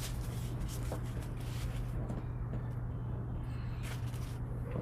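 Steady low electrical hum under quiet room tone, with a couple of faint rustles near the end.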